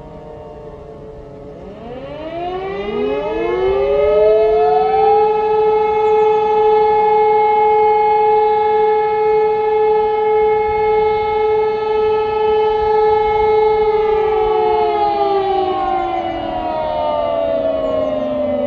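Two E57 electromechanical sirens and an Ergatec EWS4 electronic siren sounding the fire-alarm test signal together. Their staggered tones rise in pitch from about two seconds in, hold a steady howl for about ten seconds, then fall in pitch as they wind down near the end.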